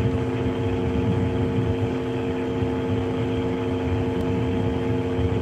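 Steady mechanical hum with several held tones over a low rumble, unchanging throughout.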